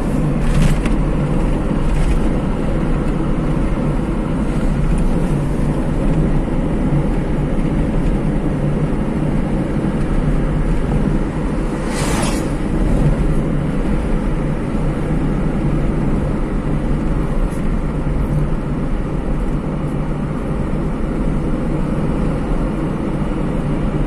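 Steady rumble of a car's engine and tyres on the road, heard from inside the cabin while driving. A brief sharp click about halfway through stands out above the rumble.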